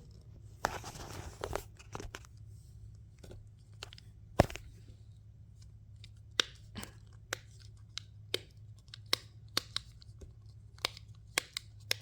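Simple dimple fidget toy's silicone dimples being pushed through, giving a series of sharp pops at irregular intervals, about one or two a second, with a brief rustle of handling about a second in.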